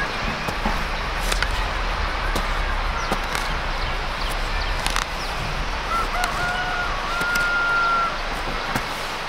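A rooster crows once, a long held call about two-thirds of the way in, over the irregular chop and scrape of a hand hoe cutting into tilled soil.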